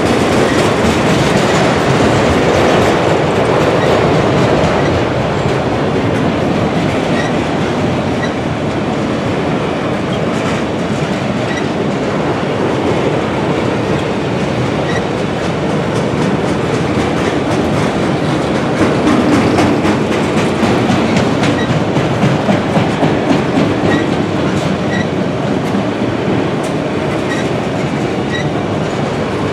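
Freight train of auto rack cars rolling past at steady speed: a continuous rumble of steel wheels on rail, with wheels clicking over rail joints.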